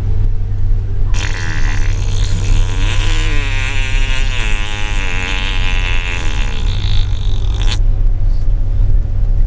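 Steady low road rumble inside a moving car. From about a second in until near the end, a loud, warbling, wavering-pitched sound rides over it, then stops abruptly.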